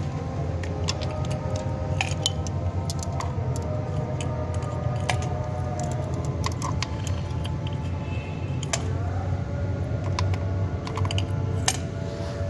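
Irregular metallic clinks and rattles of tools and small metal parts being handled, over a steady low hum.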